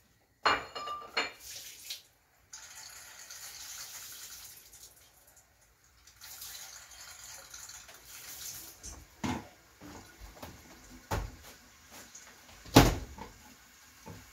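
A kitchen tap runs into the sink in two stretches, with dishes clattering and a few sharp knocks, the loudest near the end.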